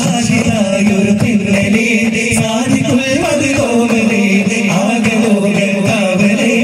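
Daff muttu performance: voices singing a chant over daf frame drums struck together in rhythm.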